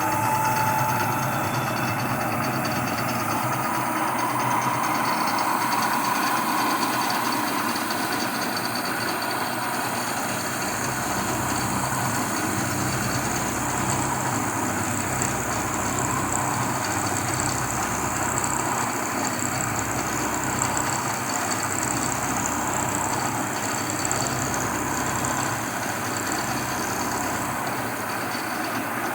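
1980 Shizuoka AN-S CNC milling machine milling a slot in 1018 carbon steel: steady spindle and cutting noise over a low pulsing hum, with a high whine that comes in about a third of the way through and fades near the end.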